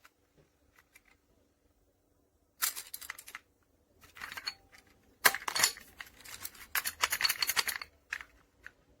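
Metal clicking and rattling in three bouts, the longest and loudest in the second half: a heavy-duty steel bike U-lock and its keys being handled.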